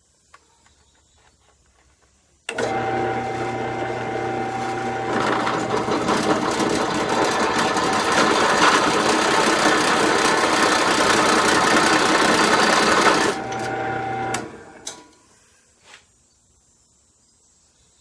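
Large drill press starting up and running, its motor humming with a steady whine; about 2.5 s later a 3/4-inch bit bites into 1/2-inch steel plate and the sound turns louder and rougher for about eight seconds as the hole is drilled out, then it drops back to the free-running motor and winds down.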